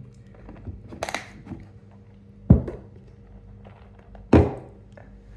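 Dried chilli packets and peppers being handled on a table: a short rustle about a second in, then two sharp thunks about two and a half and four and a half seconds in.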